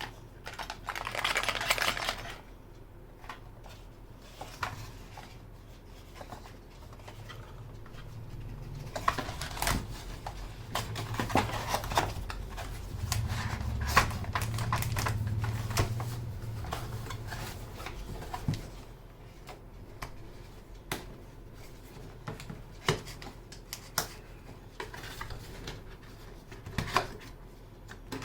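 Typing on a Skyloong SK61 mechanical keyboard with Gateron optical switches: keys clicking, sometimes in quick runs and sometimes as single strokes. A fast flurry comes about a second in, and a busier stretch in the middle carries a low rumble.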